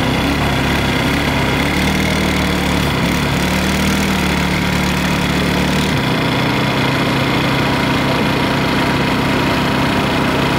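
ATV engine running under throttle as the quad is driven and pushed back up out of a roadside ditch; its note shifts about six seconds in.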